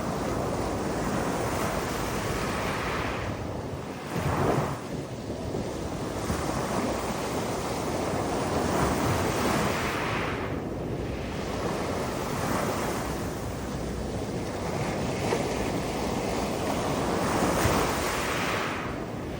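Mediterranean sea waves washing against rocks: a continuous rushing surf that swells and falls back every few seconds, with a louder surge about four seconds in.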